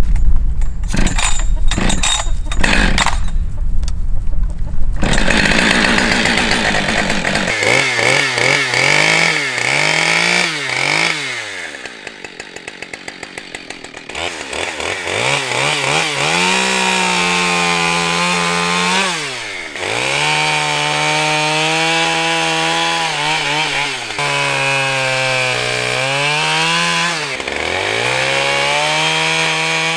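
Husqvarna 572XP chainsaw revving and cutting wood, its pitch sagging under load in each cut and rising again as it comes free. It drops to a ticking idle for a few seconds near the middle. It comes in after several short rasping strokes at the start.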